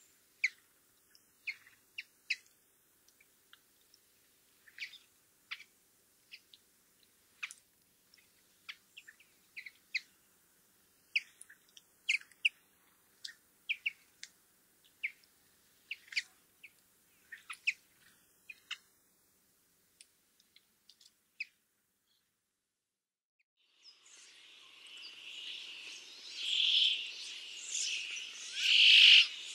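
Bramblings giving short, sharp call notes, scattered one or two at a time. After a short silence near the end, a male brambling's plain, buzzy, drawn-out 'jūn' song starts and repeats, louder than the calls.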